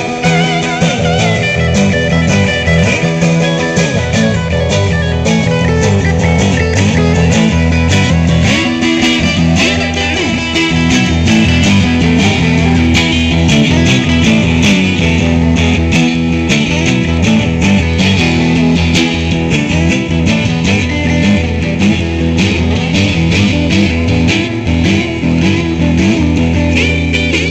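Live blues band in an instrumental break: a Stratocaster-style electric guitar playing quick picked lead lines over strummed rhythm guitar and a steady low end.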